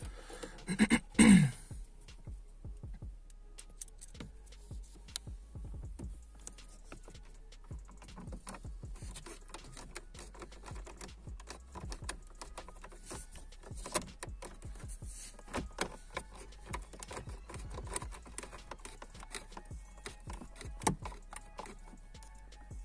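Small irregular clicks and light rattles of a screwdriver on screws and the plastic instrument cluster surround of a Honda Civic dashboard, as the cluster's upper screws are tightened. A brief louder noise comes about a second in.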